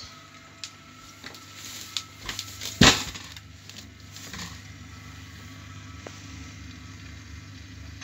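A kitchen appliance runs with a steady low hum. Scattered knocks sound in the first few seconds, and one loud thump comes a little before the three-second mark. After that only the even running noise is left.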